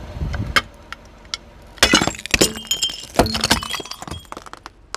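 A car tyre crushing brittle objects: a run of sharp cracks and breaking sounds with bright clinking, the loudest about two seconds in and again just past three seconds.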